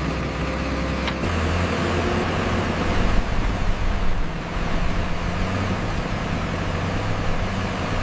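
A motor or engine running steadily, with its low hum shifting about a second in.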